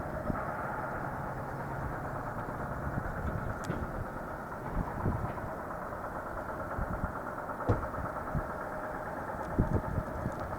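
Steady hum of heavy machinery or a large engine running, with a few short low thumps scattered through it.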